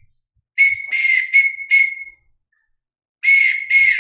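Whistle blasts sounding Morse code, short and long signals spelling out a word: four blasts in quick succession about half a second in, a pause of about a second, then two more near the end.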